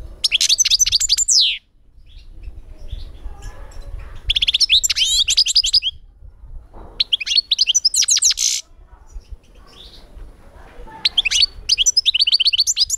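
Caged European goldfinch singing: four bursts of rapid, high twittering song separated by short pauses.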